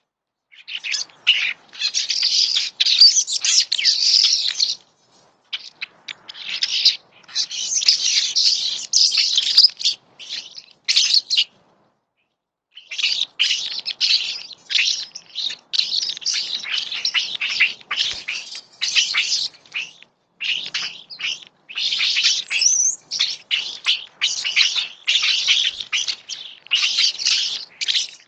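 Wild birds chirping rapidly and loudly, in several bouts of a few seconds each, broken by brief silences.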